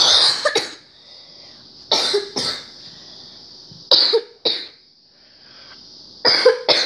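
A person coughing in four short double coughs, about two seconds apart.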